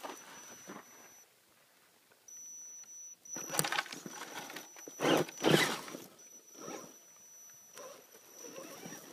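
Axial Wraith RC rock crawler climbing: a thin high whine from its electric motor comes and goes with the throttle, while its tires scrabble on dirt and rock. There are two loud scrabbling bursts, about 3.5 and 5 seconds in, and lighter scuffs after them.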